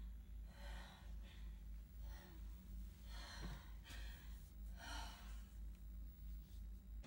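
A woman breathing hard and gasping after screaming, her breaths faint and coming about once a second, over a low pulsing hum at roughly three beats a second.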